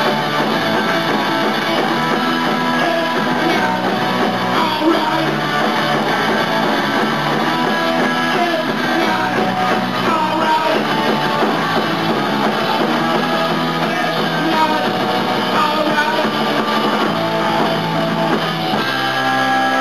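Rock band playing live: electric guitar, drum kit and a singer at the microphone, recorded thin with little deep bass. Near the end the playing shifts to held, ringing notes.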